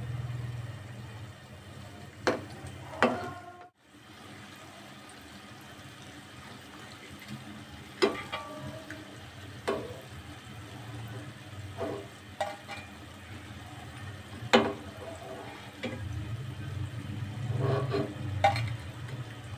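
Lentil fritters (dahi vada) sizzling steadily in hot oil in a steel wok during their second frying, with occasional scrapes and clinks of a metal spatula and slotted skimmer against the pan as they are turned and lifted out.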